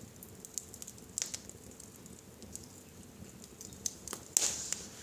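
Wood fire in a fireplace crackling, with irregular sharp pops over a low steady rumble. One louder pop comes near the end.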